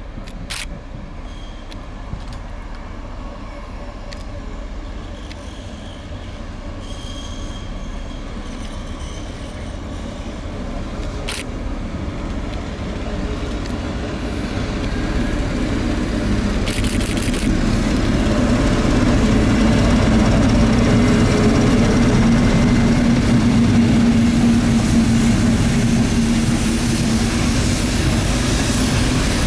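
Slow-moving train of Class 73 electro-diesel locomotives and snow-and-ice treatment wagons passing, its wheels running on the rails. The rumble grows steadily louder as the train nears, with a steady low hum through the second half.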